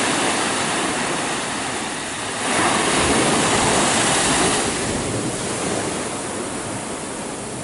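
Surf rushing and washing onto a beach, a steady noise that swells louder for a couple of seconds from about two and a half seconds in, then eases.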